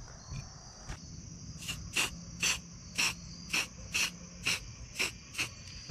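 Aerosol spray-paint can sprayed in a quick series of short hissing bursts, about two a second, while the paint is dabbed onto a small area. Crickets or other insects chirp steadily in the background.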